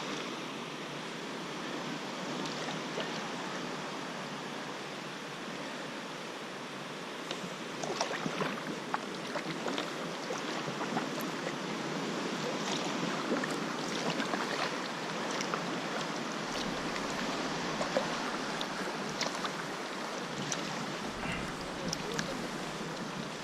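Sea water lapping and splashing around a kayak: a steady wash of small waves, with scattered short splashes and drips from about eight seconds in.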